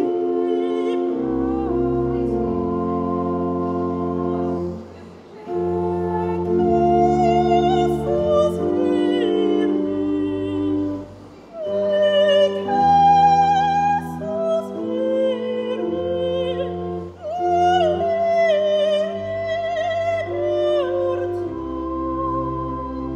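An operatic voice singing with vibrato over slow, sustained chords on an organ, the held bass notes not fading. The phrases break off briefly about five, eleven and seventeen seconds in.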